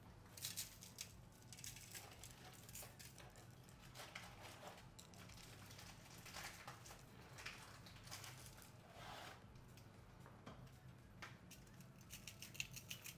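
Faint, irregular patter of dry seasoning rub being sprinkled onto raw salmon fillets and the foil lining of a sheet pan.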